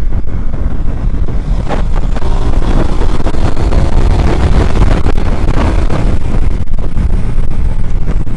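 Ducati Diavel 1260's desmodromic Testastretta V-twin pulling hard under heavy throttle at about 140 km/h, mixed with strong wind rushing over the microphone.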